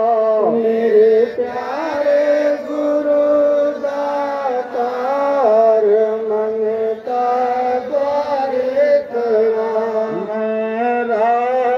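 Devotional prayer chant sung in long, drawn-out, wavering notes by a lead voice, with only brief pauses between phrases.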